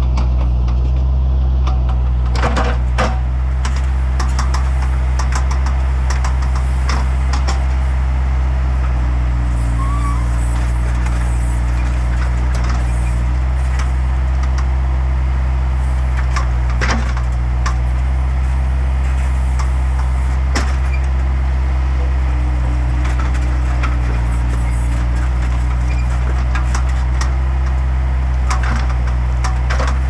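Bobcat S175 skid-steer loader's diesel engine running steadily under load as its backhoe attachment digs and lifts soil, with a few sharp knocks and clatters from the bucket and stones.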